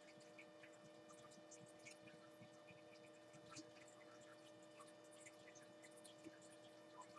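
Near silence: a faint steady electrical hum, with faint scratching and tapping of a marker writing on a whiteboard.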